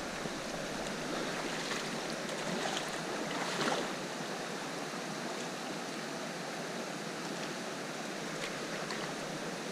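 River water rushing steadily past, with one brief louder swish about three and a half seconds in.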